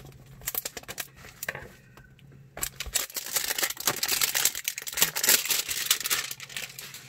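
Cardboard trading-card hanger box being opened, with scattered clicks and scrapes of the flap. From about two and a half seconds in, a cellophane-wrapped stack of cards crinkles loudly as it is pulled out and handled, easing off near the end.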